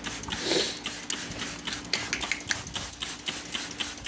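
Hand trigger spray bottle being squeezed again and again, a quick run of short spritzes about three a second.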